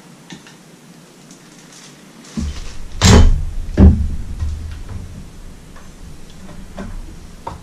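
Two loud knocks less than a second apart over a low rumble, as a hand bangs against the outboard motor's housing on its stand.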